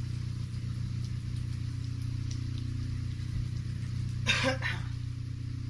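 A woman coughs twice in quick succession into her hand, about four seconds in, over a steady low hum.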